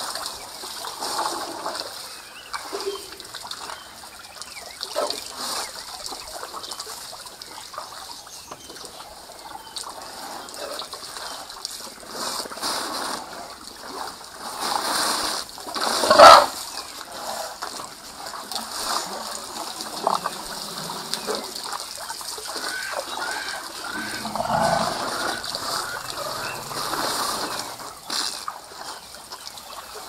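African elephants drinking at a waterhole: irregular splashing and dribbling of water from their trunks, with one loud splash about sixteen seconds in.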